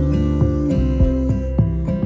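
Background music led by a strummed acoustic guitar, with a steady beat of about three strums a second.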